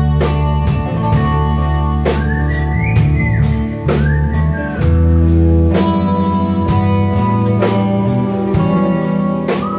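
Live rock band playing an instrumental passage of a slow ballad: a drum kit keeps a steady beat with cymbal strokes under bass and electric guitars. A lead line slides up in pitch a few times.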